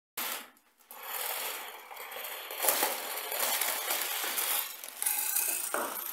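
Motorised LEGO Technic tank driving over obstacles: plastic gears and track links clattering and ratcheting, with a sharper clack about two and a half seconds in.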